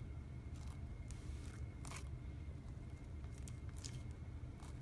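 Crunchy slime mixed with small plastic beads being folded and kneaded by hand, giving scattered crackles and pops, with a couple of louder ones about two and four seconds in, over a low steady hum.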